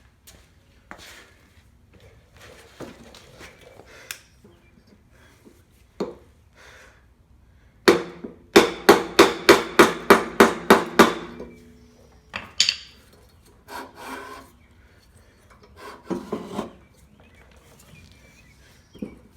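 Hammer blows on a block of wood held against a Briggs & Stratton Classic lawnmower engine's flywheel to knock it off without a puller. A fast run of about ten sharp strikes comes in the middle, with scattered single knocks and the scrape of wood on metal around it.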